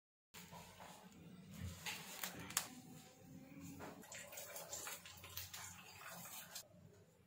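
Plastic cling film crinkling and rustling as it is handled over dough balls, with many small crackles and one sharp click about two and a half seconds in. It starts suddenly and stops shortly before the end.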